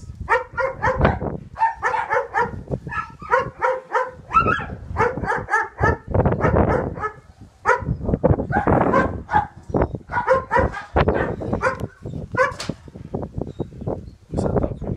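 A dog barking in quick runs of short, high barks that go on throughout, with gusty wind rumbling on the microphone.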